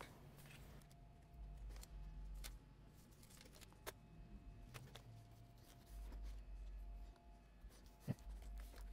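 Near silence: faint room tone with a few soft, scattered clicks and taps from a laptop being handled, the sharpest one near the end.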